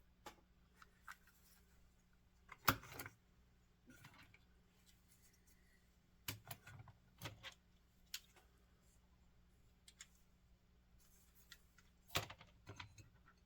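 Faint clicks and light clatters of small HO-scale model railroad cars being handled and set down on a hard surface, a few separate knocks with the sharpest about three seconds in and near the end.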